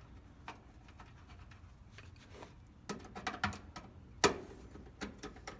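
Small clicks and scrapes of a quarter-inch hex nut driver tightening the screw that holds a new fuse to a Kenmore dryer's sheet-metal housing, with a sharper click about four seconds in.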